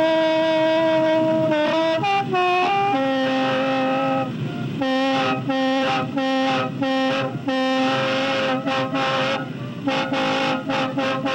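A khaen, the Thai bamboo free-reed mouth organ, being played: reedy chords of several notes at once over a steady drone. The notes shift quickly around two seconds in, and from about five seconds in the playing turns into a rhythm of short, repeated chords.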